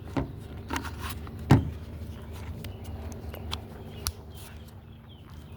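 Kel-Tec PMR-30 pistol being handled: several sharp metallic clicks, the loudest about a second and a half in, with lighter clicks before it and one more near four seconds.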